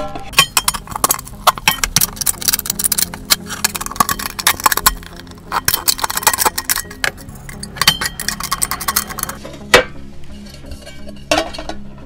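Tin snips cutting through the thin steel wall of a tin can: a rapid, uneven run of sharp metallic snips and clinks that thins out about ten seconds in.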